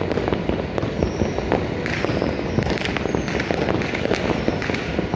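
Many fireworks going off at once: a dense, unbroken crackle of bangs and pops over a low rumble.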